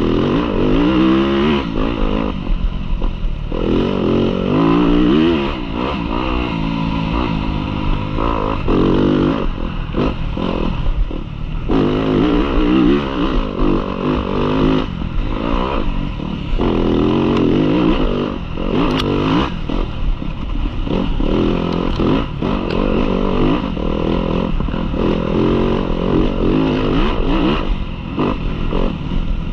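Yamaha dirt bike engine running hard, its pitch climbing again and again and then dropping off as the throttle is opened and shut.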